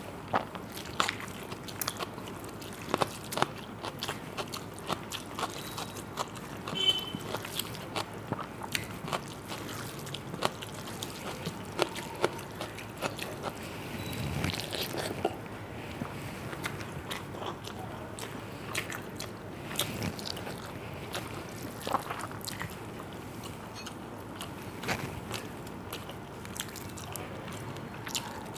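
A person eating close to the microphone: irregular crunching, chewing and mouth clicks while eating watery fermented rice (panta bhat) with fried potato, pointed gourd and fish.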